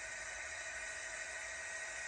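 Steady hiss with a faint, thin high tone running through it.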